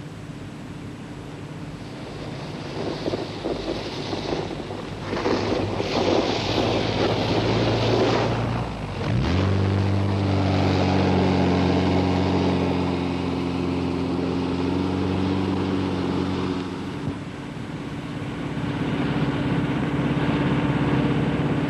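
Wind blowing over snow. About nine seconds in, a Volkswagen Beetle's air-cooled flat-four engine comes in, rising in pitch and then running steadily as the car drives through deep snow.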